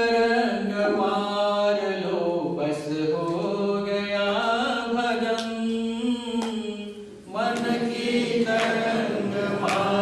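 Devotional chanting sung in unison by a group of voices, in long held notes, with a short break about seven seconds in.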